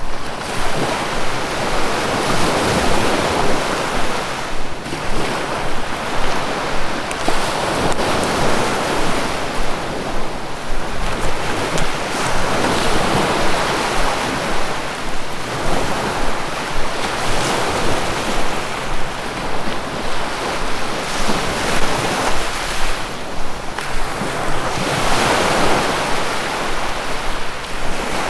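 Sea waves breaking and washing on a shore: a continuous rush of surf that swells and eases every few seconds.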